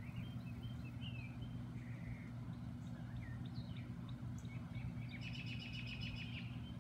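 Songbirds chirping in short, scattered calls, with a fast trill about five seconds in lasting just over a second, over a steady low hum.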